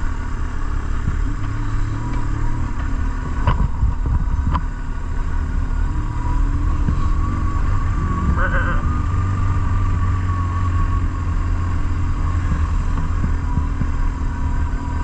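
BMW R1150GS Adventure's boxer twin engine running on the overrun, engine braking the bike down a steep descent, under a steady low rumble of wind on the microphone.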